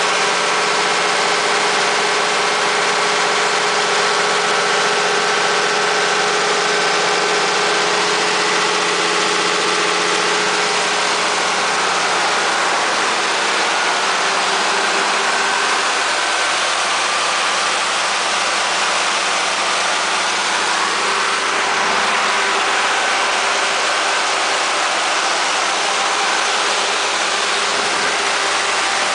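Cummins 6CTA8.3 turbocharged, aftercooled inline-six diesel of a 150 kW standby generator set running steadily, a constant engine drone.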